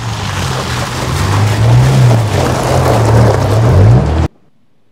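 Toyota Tacoma pickup driving hard on a dirt track: the engine revs rise and fall over loud tyre and gravel noise. The sound cuts off suddenly near the end.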